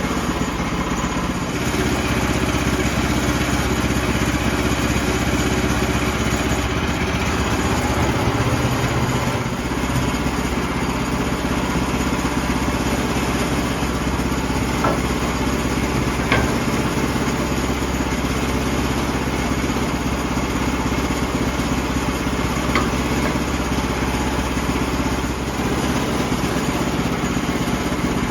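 Portable sawmill's engine running steadily as the mill saws through an oak log, its tone shifting briefly about eight to ten seconds in, with a few faint clicks.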